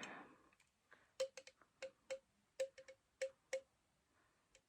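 Faint light clicking taps on a hard object, about a dozen in irregular clusters of two or three from about a second in, each with a brief ring.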